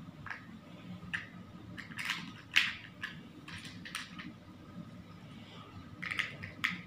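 Hollow plastic building blocks clicking and clacking as they are handled and pressed together, an irregular series of light clicks, the loudest about two and a half seconds in.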